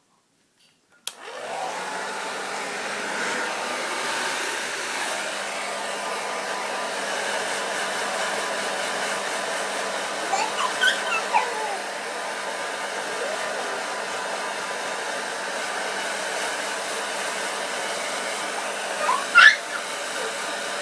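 Electric hair dryer switched on about a second in, then blowing steadily with a low hum. Short high gliding calls from an animal cut through it about halfway, and a louder one near the end.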